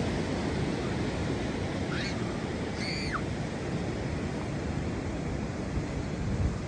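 Steady rush of ocean surf with wind noise. A bird gives two short gliding calls about two and three seconds in.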